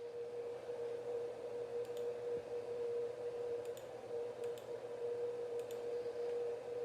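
Baytech BT2436 CNC router running, giving a steady whine with a low hum under it and a few light clicks.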